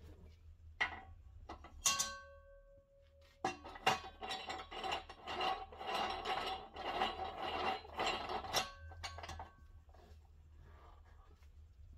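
Metal clanking and scraping as a steel wheel rim and the fittings of a manual tire changing stand are worked onto the stand's steel post. A knock about two seconds in leaves a ringing tone for about a second and a half, then several seconds of continuous metallic rattling and scraping follow, ending with one more knock.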